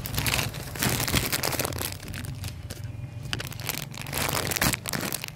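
Plastic instant-noodle packet crinkling and crackling as it is handled and turned over in the hands.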